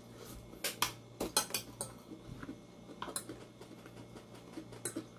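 Tableware clinking at a meal: a series of short sharp clicks and clinks on a plate and glass bowl, bunched together about a second in, with a few more later. A faint steady low hum runs underneath.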